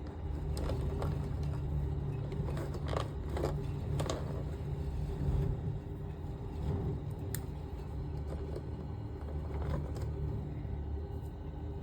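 A steady low background hum, with a few faint clicks and taps of small plastic action-figure parts being handled as a hand is swapped on the figure.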